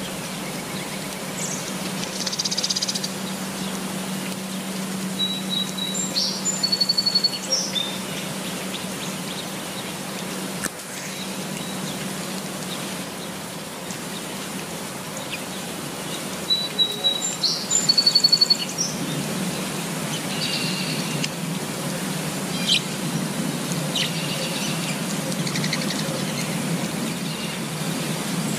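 Steady rain falling on foliage with small birds chirping and twittering on and off, the loudest phrases about a quarter and again about two-thirds of the way in.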